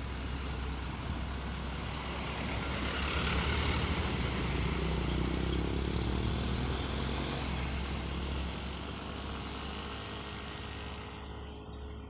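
Truck driving past on the road, its engine rumble and tyre noise swelling to the loudest about three to four seconds in, then slowly fading.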